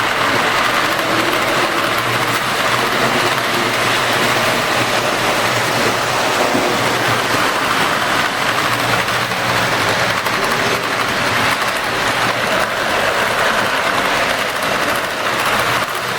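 Lionel O scale model trains running on a layout: a steady whirring rumble of wheels on track and electric motors, with a low hum underneath.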